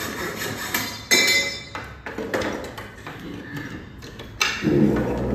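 Hammer striking a nail into a wooden frame: sharp knocks with a metallic ping. The loudest blow comes about a second in, with another near the end.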